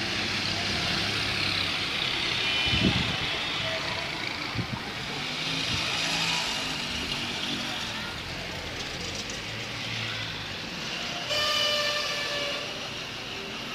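Busy street: car engines running with voices in the background, and a car horn sounding for about a second near the end.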